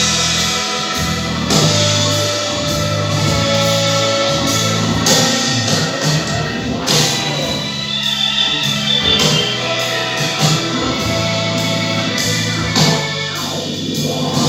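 Instrumental music with held bass notes and a regular drum beat.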